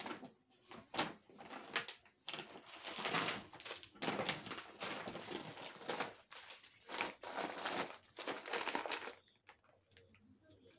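Plastic packaging crinkling and rustling in irregular bursts as small packaged items are handled, dying down near the end.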